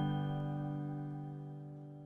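Outro music ending on a held chord that rings out and fades steadily away.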